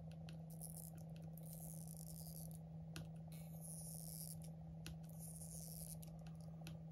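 Faint crackling of an iPhone 11 battery's stretch-release adhesive strip being pulled slowly out from under the battery, with a few small clicks, over a steady low hum.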